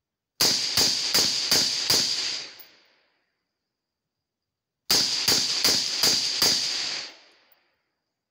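Suppressed semi-automatic carbine firing two strings of five shots, about 0.4 s apart, with the second string starting about three seconds after the first ends. Each string trails off in a brief fading echo.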